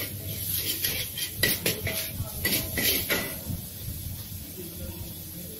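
Metal ladle scraping and clanking against a steel wok as noodles are stir-fried: a quick, irregular run of clanks and scrapes through the first three seconds or so, then quieter.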